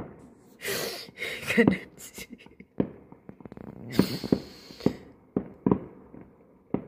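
Fireworks going off about 2 km away: a string of sharp bangs, with two short bursts of crackle about a second in and about four seconds in.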